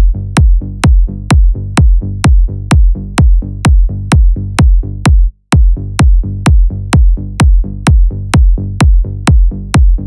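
Techno track with a loud, steady four-on-the-floor kick drum, about two beats a second, over a pulsing bass line. The beat drops out briefly about five seconds in, then comes straight back.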